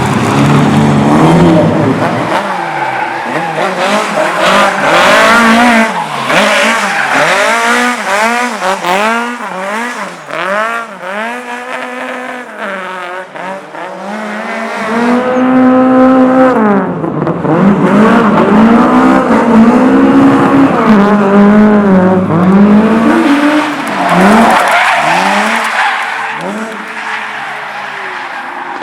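A car engine revving hard, its pitch rising and falling again and again as the driver works the throttle, with tyres squealing and skidding on pavement.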